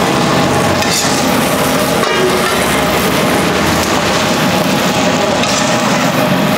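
Kulchas sizzling on a large flat iron tawa: a steady sizzle with scattered clicks as a metal spatula scrapes and taps on the griddle while turning them.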